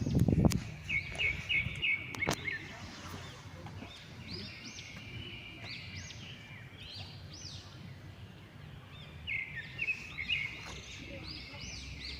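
Small birds singing: repeated short rising-and-falling chirps and quick trills, in two runs. A brief low thump comes right at the beginning.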